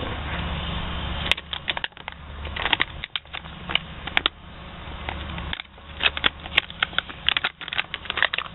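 Irregular crinkling and clicking of plastic as the squeeze pouches and packaging are handled, over a steady low hum.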